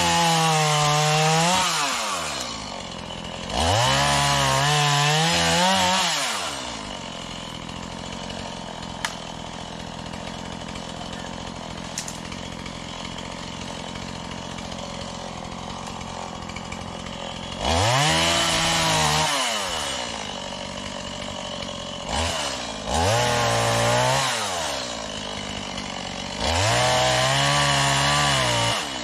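Small Stihl two-stroke gas chainsaw revved up in about five bursts to cut overhead branches and saplings, the engine note climbing and dipping under load, then dropping back to idle between cuts. A long stretch of idling falls in the middle.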